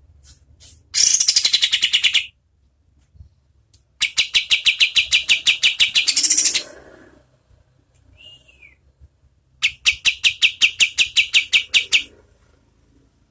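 Kapas tembak songbird singing its rapid trilled 'shooting' song: three long bursts of fast repeated notes, about ten a second, with a short single falling call between the second and third bursts.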